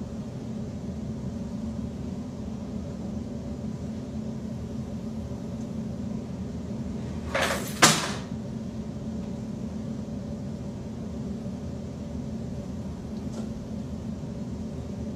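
Steady low room hum, broken about eight seconds in by a brief rustle that ends in a single sharp knock, like a cupboard or door shutting.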